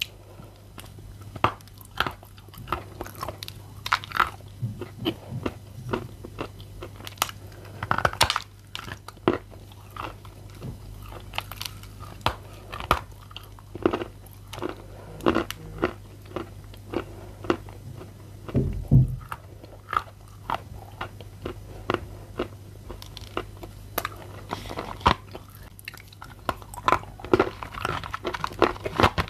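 Blue Uzbek edible clay being bitten and chewed close to the microphone: crisp crunches, about one or two a second, over a steady low hum. There is a single low thump about two-thirds of the way through.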